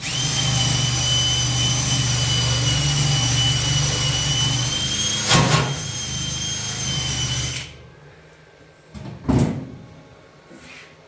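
A metalworking shop tool runs steadily with a high-pitched whine and a low hum for about seven and a half seconds, with a sharp crack a little past five seconds in, then stops abruptly. A single thump follows near nine seconds.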